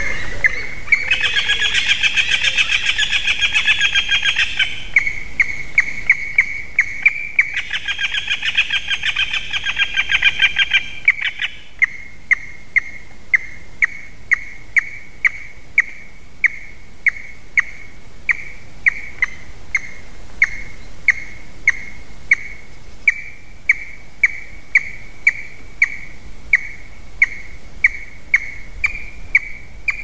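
An eaglet in the nest calling, a long series of short high call notes repeated evenly, about three every two seconds. These follow two early bursts of rapid, trilled calling.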